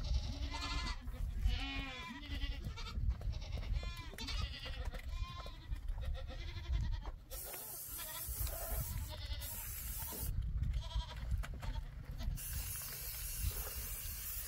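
Goats bleating repeatedly with a quavering pitch through the first half, over a constant low rumble. About halfway through the calls give way to a steady hiss.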